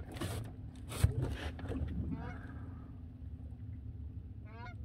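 Geese honking twice, once about two seconds in and again near the end, over a low steady hum.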